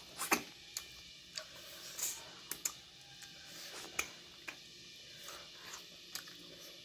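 Close-up eating sounds of two people eating fish curry and rice by hand: irregular wet clicks and smacks of chewing and of sucking meat off fish bones, the sharpest just after the start and about four seconds in.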